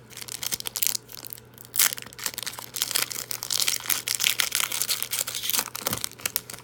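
Wrapper of a 2018-19 Panini Prizm basketball card pack being torn open and crinkled by hand, an irregular run of crackling.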